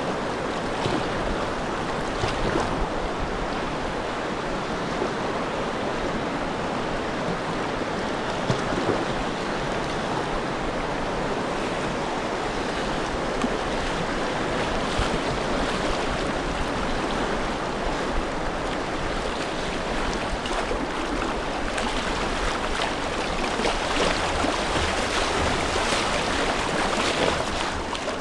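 Steady rushing water of river rapids running around a kayak, with a few brief sharper splashes.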